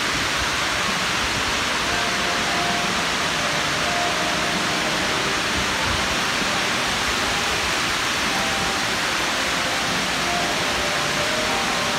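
Water pouring in thin sheets down a tall indoor waterfall wall into the pool below, a steady, even rush with no breaks.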